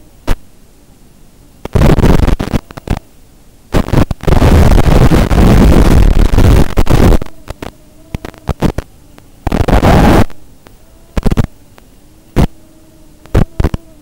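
Repeated loud bursts of harsh static and hiss on the analog FPV video link's audio channel, the longest about three seconds starting around four seconds in. Between the bursts there is a faint steady hiss with a faint wavering hum.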